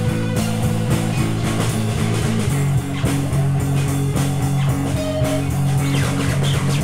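Psychedelic rock jam from a guitar, keys and drums trio: guitars hold sustained low chords over a steady drum kit, the chord shifting about two and a half seconds in.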